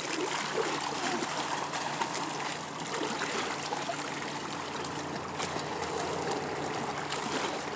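Lake water lapping and trickling among shoreline rocks, a steady wash, with small splashes from a swimmer kicking.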